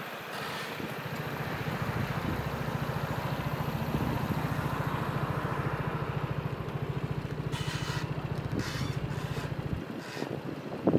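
Piaggio Vespa GTS 300 Super's single-cylinder four-stroke engine idling steadily, with an even low pulse. A brief sharp knock just before the end is the loudest sound.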